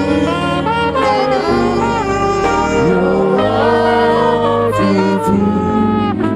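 Live gospel worship music: a melodic lead line of long, sliding notes over a steady bass.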